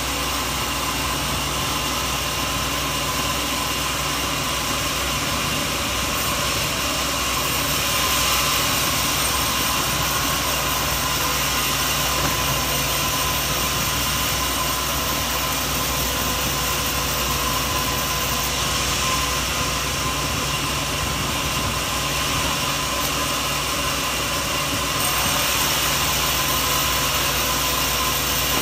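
Sawmill machinery running steadily: a constant mechanical hum and hiss, swelling slightly about eight seconds in and again near the end.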